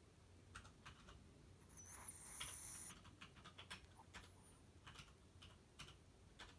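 A sleeping Chihuahua breathing faintly through its nose, with one soft hissing breath about two seconds in and scattered small clicks and ticks.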